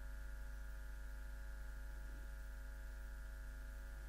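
Quiet room tone with a steady low electrical hum and faint hiss.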